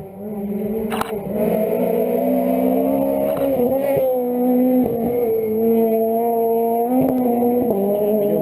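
Rally car engine running hard under throttle, heard from onboard the car. Its pitch holds high and steps up and down several times as the revs change, with a sharp knock about a second in.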